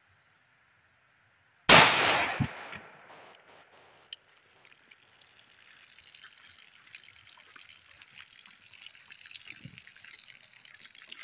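A single shot from a Rock Island Armory M1911A1 9mm pistol about two seconds in, loud and ringing off over about a second. Then water splashing and trickling out of the bullet-holed plastic water jugs, growing louder.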